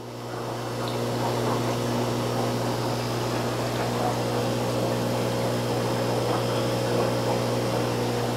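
Steady rushing of aquarium water circulation, a pump and running water, over a constant low hum. The rushing swells over the first second or two, then holds steady.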